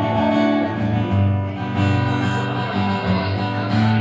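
Acoustic guitar strumming chords with no singing: the closing instrumental bars of a country song.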